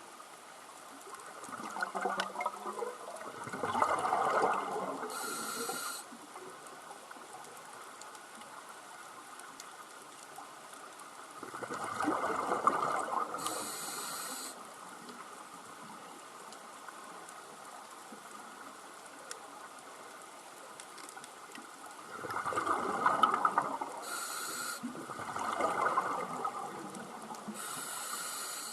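Scuba diver breathing through a regulator underwater: rushing bursts of exhaled bubbles alternate with short, high hisses of the regulator on the inhale, a few breaths about ten seconds apart.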